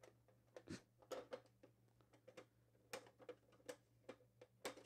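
Faint, irregular clicks and taps of a hard plastic Toy Biz Joker Van toy being handled while its stiff back door is worked at.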